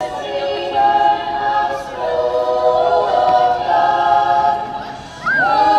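A choir singing long held chords in several parts, with a brief lull before a new chord near the end; the singing cuts off abruptly.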